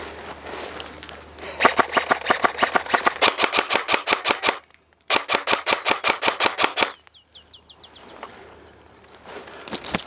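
Airsoft electric gun firing full-auto in two long bursts of rapid, evenly spaced shots, about three seconds and then two seconds, with a brief pause between them.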